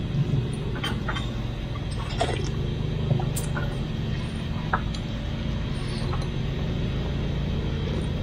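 Steady low hum of street traffic, with a few short, light clicks and clinks scattered through it.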